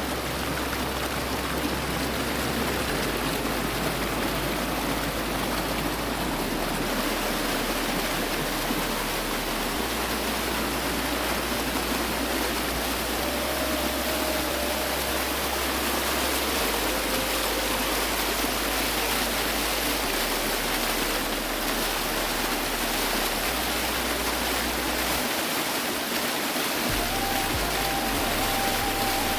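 Steady rush of water from a small waterfall, with background music underneath: low held bass notes that change every few seconds.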